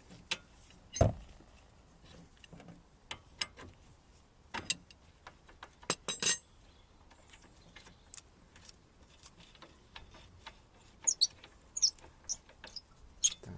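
Hand tools working on the 19 mm bolts of a car's front shock absorber: scattered metallic clicks and knocks, a heavier clunk about a second in and another about six seconds in, then a quick run of sharp, high, squeaky clicks near the end.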